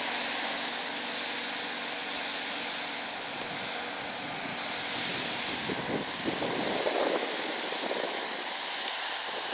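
Steady outdoor hiss with a faint steady hum, and ski edges scraping over hard-packed snow as a giant slalom racer carves past, loudest and roughest about six to eight seconds in.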